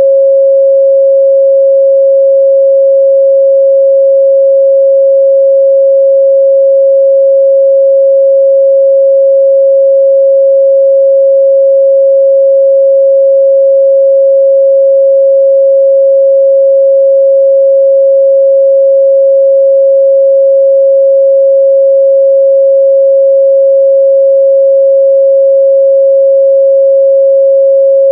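A steady, loud 545 Hz sine-wave test tone, one pure pitch held without change.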